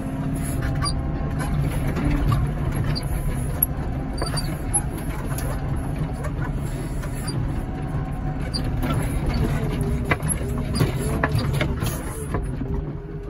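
A heavy machine's engine running steadily while the hydraulic loader arm swings, with squeaks, creaks and occasional clicks from the moving machinery.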